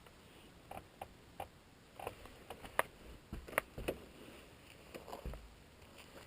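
Irregular sharp clicks and light knocks, about a dozen over several seconds, with a few dull thumps in the middle.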